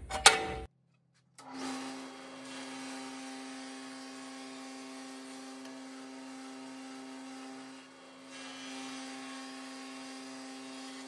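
A few sharp wooden knocks, then an electric benchtop jointer starts and runs with a steady motor whine and a hiss, as boards are edge-jointed on it. The sound dips briefly about eight seconds in, between passes.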